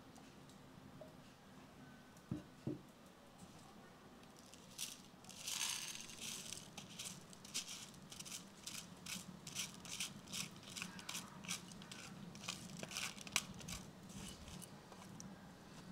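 Wooden spoon scraping black barberries out of a plastic colander into a frying pan, in short repeated strokes at about two a second. Two low knocks come a couple of seconds in.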